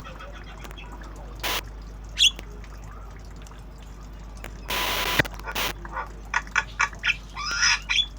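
Javan myna calling: a single sharp chirp about two seconds in, then a fast run of short, harsh calls over the last couple of seconds. Two brief bursts of rushing noise come about a second and a half in and about five seconds in.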